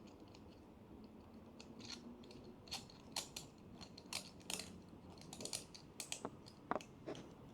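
Faint, irregular small clicks and taps as the thumb nut is threaded onto and tightened on the central shaft of an MHW-3Bomber Blade R3 manual coffee grinder. The clicks come a little more often and louder from about three seconds in.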